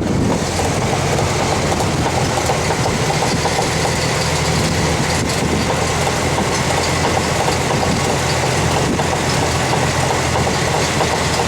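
Jeep driving, its engine and driveline running with a steady low hum under a loud rumble. The owner takes the noise for a universal joint on the drive shaft starting to fail.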